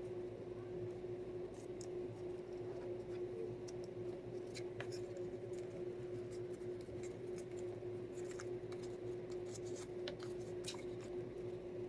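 Faint handling sounds of twine being tied around paper craft tags: scattered light ticks and rustles, more frequent in the second half, over a steady hum.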